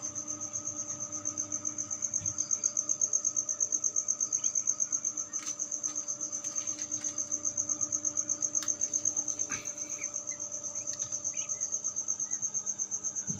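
An insect's high, fast-pulsing trill, about six pulses a second, runs steadily over the low, even hum of the incubator's two circulating fans. A few faint clicks sound as the eggs are handled.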